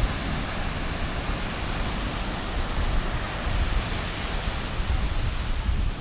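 Surf from large waves breaking on a sandy beach, a steady wash of noise, with wind buffeting the microphone as a low, uneven rumble.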